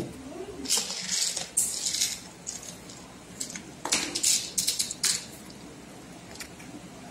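Small gold beads rattling and clicking in a plastic box as it is handled, in several short bursts that stop about five seconds in.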